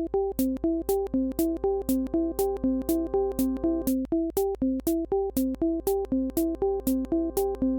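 Background electronic music: a looping synthesizer melody over a steady, quick percussion beat.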